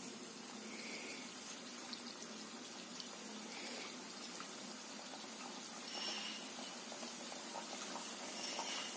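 Doughnut dough rings deep-frying in hot oil in a stainless-steel pan: a steady soft bubbling sizzle with small scattered crackles.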